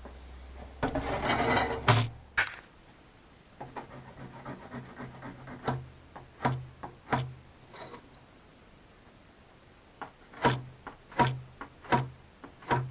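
Timber being worked by hand: a brief burst of rubbing and scraping on wood about a second in, then a run of separate knocks and taps as pieces are handled and fitted, loudest near the end.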